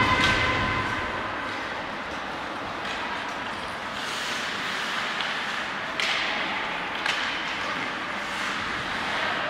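Ice hockey play on an indoor rink: a steady hiss of skates on the ice, with sharp clacks of sticks, puck and boards, the clearest about six and seven seconds in. A short held shout is heard at the very start.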